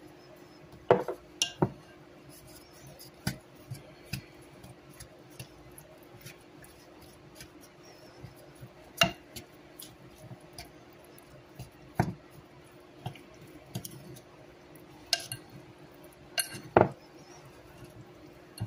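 A wooden spoon knocking and clicking against a glass mixing bowl as raw beef tips are tossed in dry seasoning: scattered sharp taps at irregular intervals.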